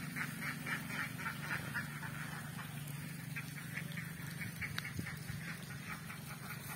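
A flock of domestic laying ducks quacking in quick short calls, several a second, coming and going in spells. A steady low hum runs underneath.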